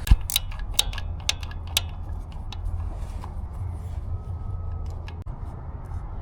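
Small hand tool clicking as it works out the tiny 3/16 screws holding the injector harness on a Detroit Series 60 engine: sharp, irregular metallic clicks, quick at first and sparser after about two seconds, over a steady low hum.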